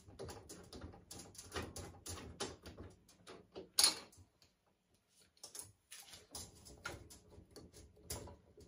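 Clamp bracket of a metal mesh under-desk drawer organizer being twisted loose and the unit handled against a steel shelf: a run of small clicks, taps and scrapes, with one sharper click about four seconds in.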